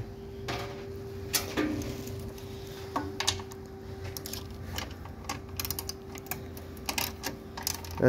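Scattered light clicks and taps of hands handling small engine parts, over a steady hum.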